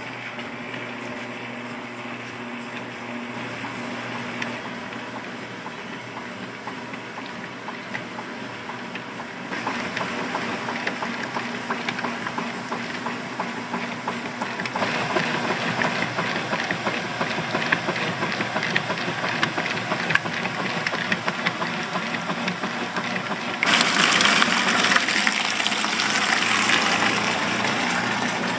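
Kenmore top-load washing machine agitating a load in water: the drive and agitator run steadily with water sloshing. The speed setting steps up from extra slow to fast, and it gets louder in steps about 10, 15 and 24 seconds in, loudest near the end.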